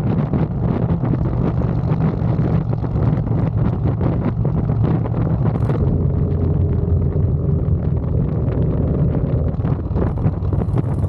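Motorcycle engine running steadily at road speed, with wind buffeting the rider's microphone. A faint steady hum joins for a few seconds past the middle.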